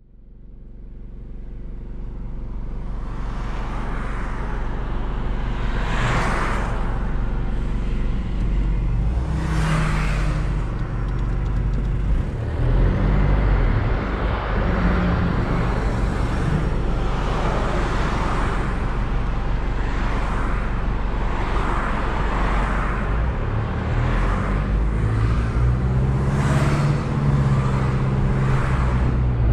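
Engine and road noise heard inside a moving car's cabin: a steady low rumble that fades in over the first couple of seconds. There are a few brief louder rushing swells partway through.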